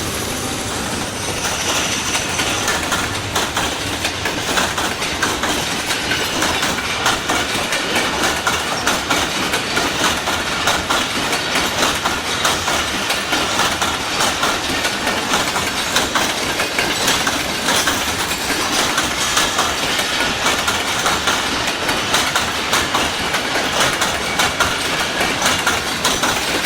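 Passenger train running on the rails, its wheels clicking and clacking over the track.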